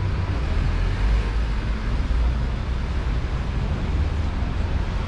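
City street traffic noise: a steady low rumble of cars with general street hubbub.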